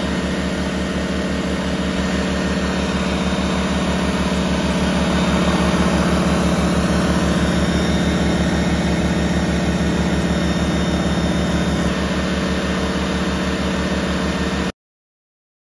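Two Firman W2000i inverter generators running in parallel under about a 2,000-watt load, with a shop vac running on their output. The steady drone cuts off suddenly near the end.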